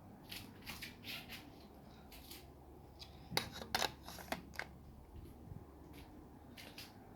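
A series of short scrapes and clicks, with a cluster of sharper clicks about three and a half seconds in, over a low steady hum.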